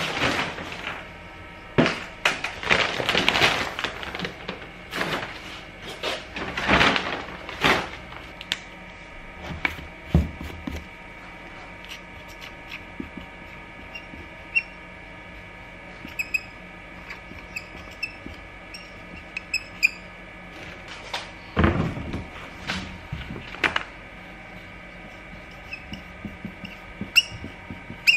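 Handling noise of plastic feed sacks and plastic supplement tubs: rustling and knocking as they are moved and set down, several thuds past the middle, and sharp plastic clicks of tub lids near the end.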